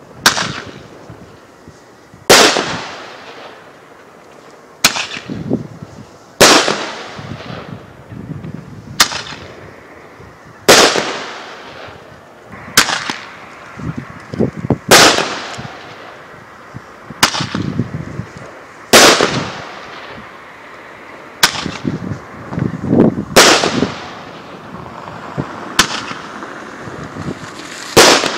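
Heron Roman candles firing shot after shot: a sharp bang about every two seconds, each trailing off in a fading hiss, with smaller crackles between some shots.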